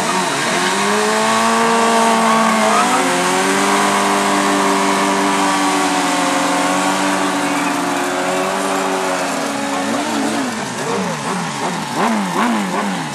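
Several sport motorcycles doing a burnout: engines held at high revs with the rear tyres spinning against the pavement, a dense hiss of tyre noise under the overlapping engine notes. Near the end the steady revs break off into quick repeated throttle blips.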